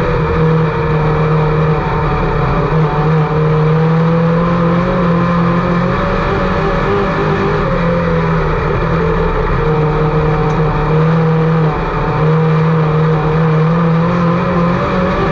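IMCA Sport Mod race car engine running hard at a steady, high pitch that wavers slightly up and down, with a brief dip near the end, typical of a car circling a dirt oval at racing speed.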